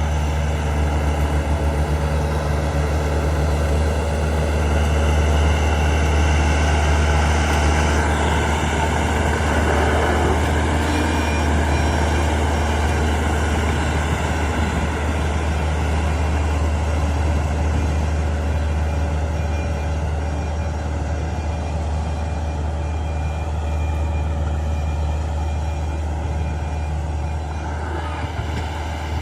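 Heavy diesel engine of earthmoving machinery running steadily with a deep, constant hum, slightly louder between about five and eight seconds in.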